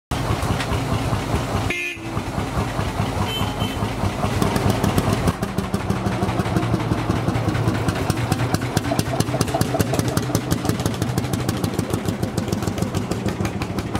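Lanz Bulldog tractor's single-cylinder two-stroke engine running, with a steady, rapid exhaust beat that becomes strong and even from about five seconds in.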